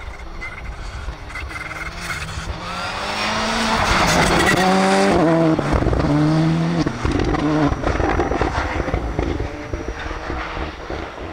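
Volkswagen Polo rally car's engine revving hard as it passes, with quick gear changes. It is loudest a few seconds in, then fades away near the end.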